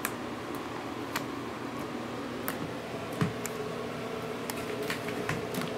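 Pink jiggly slime being poked and squeezed by hand, making small sticky clicks and pops at uneven intervals.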